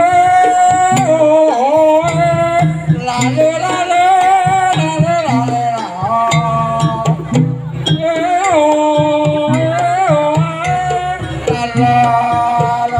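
Live jaranan gamelan music: a held, wavering melody line over a steady pattern of drum and gong beats.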